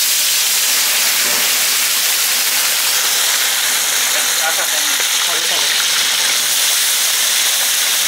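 Whole fish deep-frying in hot oil in a large karahi: a loud, steady sizzle.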